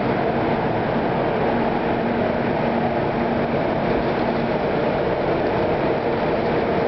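Steady rumbling noise of trains running, with a faint low hum held throughout.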